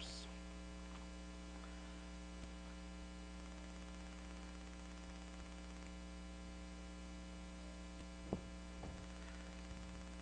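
Steady electrical mains hum in the recording, with a single soft thump about eight seconds in.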